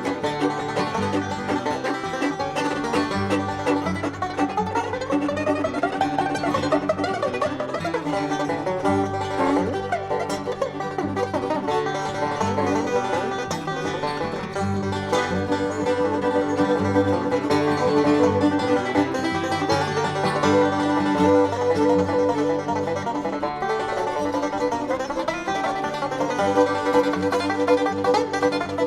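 A live bluegrass band playing an instrumental tune, led by a five-string banjo, with guitar and mandolin.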